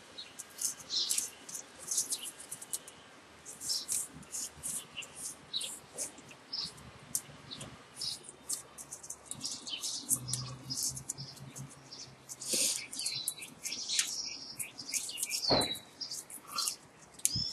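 Bundle of copper magnet wire being worked by hand into the slots of an electric motor stator: rapid, irregular high-pitched scratches and squeaks of wire rubbing on the slots and insulation.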